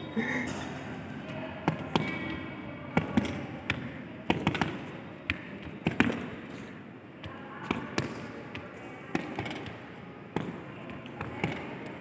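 Fists punching a hanging heavy punching bag: a string of irregular thuds about a second apart, some in quick pairs.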